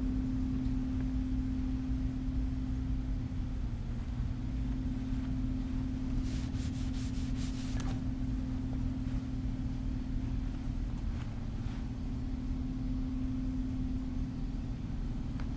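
A steady low mechanical hum, with a brief scratchy rustle about six seconds in.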